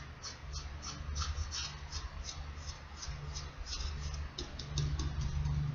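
Paintbrush scrubbing brown paint onto a costume wing in quick, short strokes: a dry scratching about three times a second, over a low steady hum.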